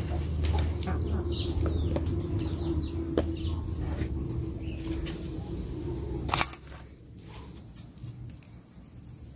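Birds chirping over a steady low rumble and hum. The rumble and hum stop abruptly about six seconds in, leaving a quieter background with a few faint clicks.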